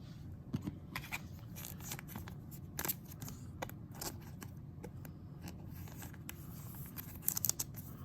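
Trading cards being handled and shuffled on a table: scattered light clicks and scrapes, a few close together near the end, over a steady low hum.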